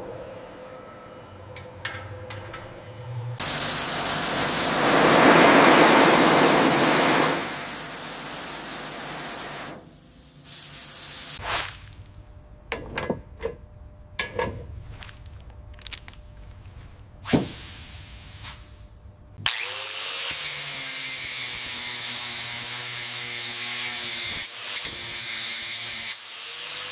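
Workshop restoration sounds in sequence. First a loud hiss like a spray gun or pressure washer lasts about six seconds. Scattered sharp knocks and clicks of tools on metal follow, then a steady hiss with a faint machine hum beneath it.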